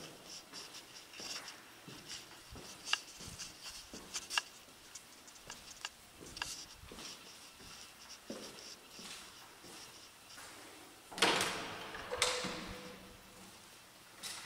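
Footsteps on a hard floor, one about every three quarters of a second, with light handling noise. About eleven seconds in comes a louder scrape, and a second follows a second later, ending in a short creak.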